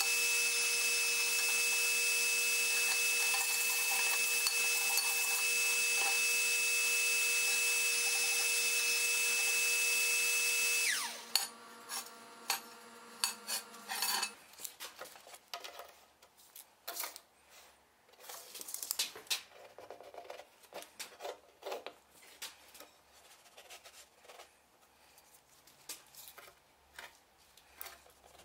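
Electric motor of a shop press running with a steady whine. It is switched off about eleven seconds in and its pitch slides down as it winds down. Then come scattered light metal clinks and scrapes as the hot bar and tooling are handled.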